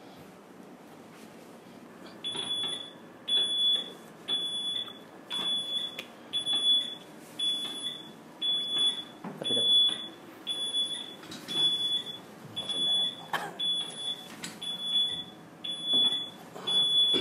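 Electronic beeper sounding a short high beep about once a second, some fifteen beeps in a row, starting about two seconds in.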